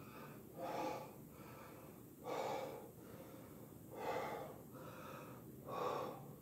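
A man breathing hard, out of breath after many push-ups: four heavy breaths, about one every second and three-quarters.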